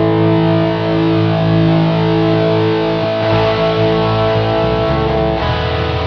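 Background music: distorted electric guitar holding chords, with a change of chord about five seconds in.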